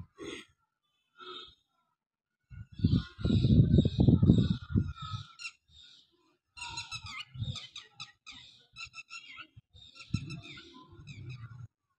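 Clear plastic packaging crinkling and rustling as it is handled and pulled open, in irregular bursts. The loudest, fullest rustle comes about three to five seconds in, followed by quicker, lighter crackling.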